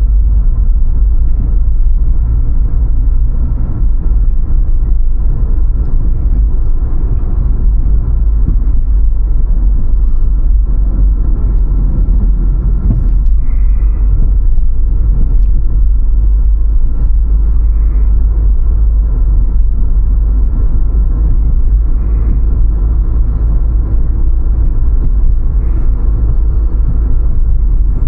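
A car driving, giving a steady, deep road-and-engine rumble with a faint steady whine above it. A few brief faint higher chirps come and go in the second half.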